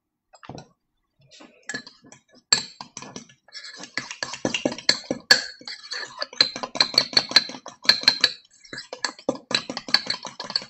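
A utensil stirring thick egg-and-almond-flour batter in a small ceramic cup, with quick, rapid clinks and scrapes against the cup's sides, starting about a second and a half in.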